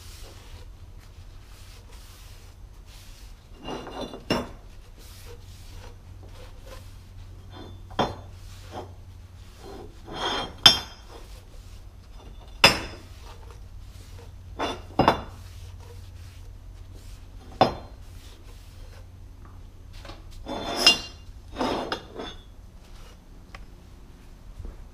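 Short pieces of 2-inch square steel tubing clanking against each other and the steel table top as they are handled and wiped down, about ten sharp metallic knocks a few seconds apart, some ringing briefly, over a low steady hum.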